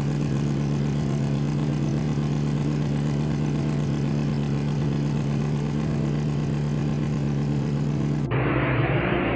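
Bus horn sound played back electronically altered into a steady low tone with several overtones, held without a break; about eight seconds in, a different, noisier and muffled version cuts in abruptly.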